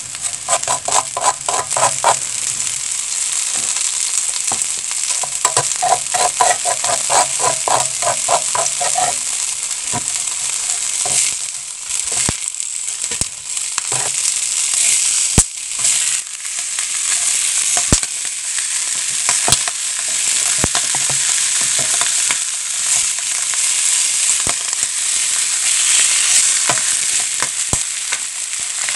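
Steady sizzling with scattered sharp pops from a hot frying pan spread with coarse sea salt, with Pacific saury laid on the salt to grill. Early on, two runs of quick, repeated strokes come from a wooden spatula spreading the salt across the pan.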